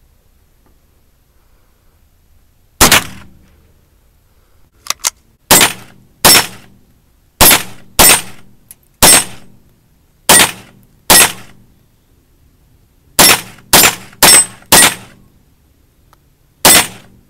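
A rifle firing thirteen single shots at a steel spinner target, mostly about a second apart with a quick run of four near the end; each shot is a sharp crack trailing off in a short echo. Two faint clicks follow the first shot.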